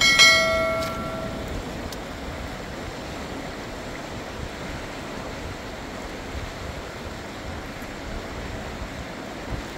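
River water rushing over stones, a steady wash throughout. Right at the start a single bell-like ding rings out and fades over about a second and a half.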